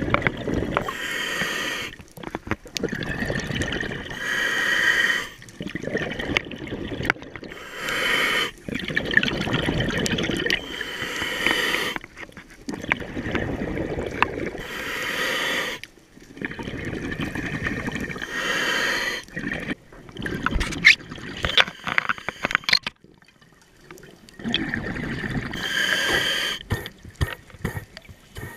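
Scuba diver breathing through a regulator: a hissing inhale, then a bubbling exhale, repeating every few seconds.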